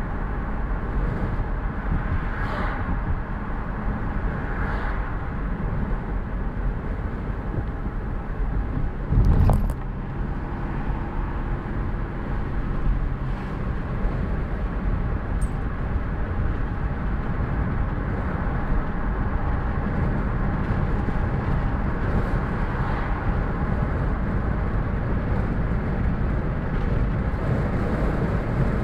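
Car driving along a road, heard from inside the cabin: steady engine and tyre noise, with one loud thump about nine seconds in.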